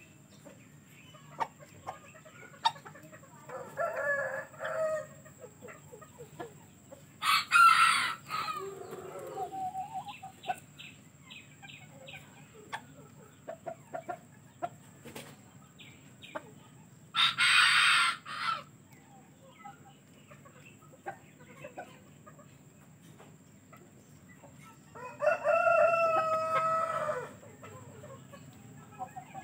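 Roosters crowing, with scattered clucking between: two loud, rough crows from close by about seven and seventeen seconds in, and a longer, clearer crow near the end. The birds are a Sebright bantam pair and a young Siamese rooster.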